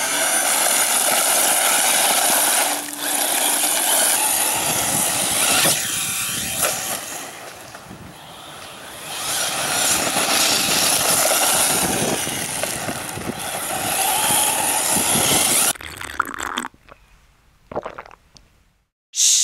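A radio-controlled car's motor running hard as the car tears across gravel, a dense mechanical buzz mixed with gravel spray. It dips in the middle, then cuts off suddenly near the end.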